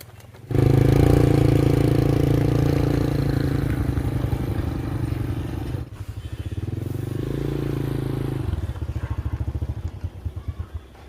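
A motorbike engine starts close by and runs, revving up twice. Its engine pulses then die away near the end as it pulls off.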